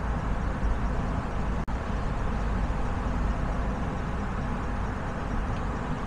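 Steady rumble of a car driving on a city street: road and engine noise, heaviest in the low end, with a split-second dropout a little under two seconds in.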